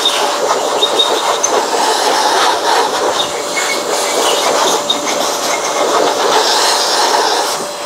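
XPOWER handheld electric blower running steadily, a loud even rush of air as it blows dust out of the underside of a robot vacuum.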